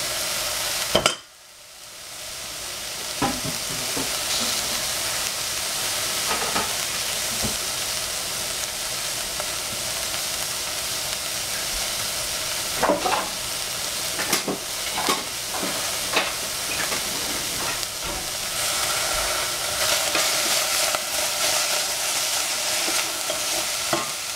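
Sliced capsicum (bell peppers) sizzling as it fries in a stainless steel pot over a high gas flame. The sizzle drops away sharply about a second in and builds back up over the next two seconds; later a wooden spatula stirs the peppers, with a few short knocks against the pot.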